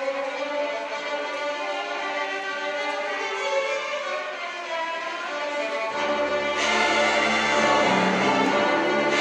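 High school chamber orchestra playing, with the violins carrying the melody. About six seconds in, deep low string notes join and the sound grows fuller and louder.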